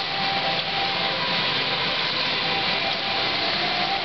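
Steady, even hiss of indoor swimming-pool hall ambience, with no single event standing out.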